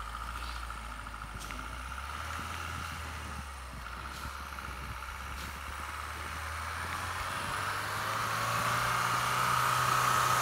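Mahindra Thar's diesel engine running as the 4x4 pushes through deep snow, its revs rising and the sound growing louder through the second half as it comes closer.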